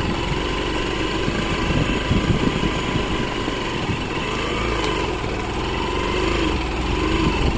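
Motorcycle engine running steadily at low speed on a rough dirt track, its pitch rising and falling gently with the throttle.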